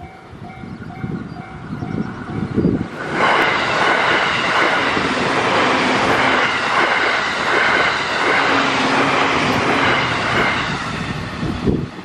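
A level-crossing warning bell rings in repeated dings. About three seconds in, a JR East E531-series electric commuter train passes close by, bringing a loud, steady rush of wheel and rail noise. The noise drops away suddenly near the end as the last car goes by.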